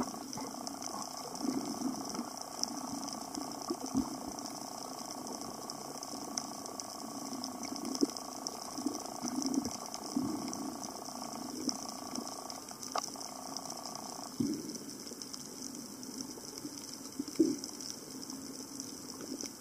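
Underwater ambience picked up by a camera below the surface: a steady crackling and clicking with short bubbly gurgles. A steady two-note hum runs underneath and cuts off suddenly about two-thirds of the way through.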